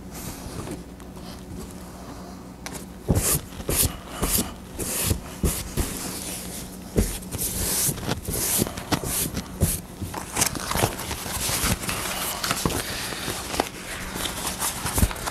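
Hands pressing and sliding an old foam seat cushion around on a plywood seat board: a run of scuffs, rustles and light knocks, busier from about three seconds in, over a faint steady hum.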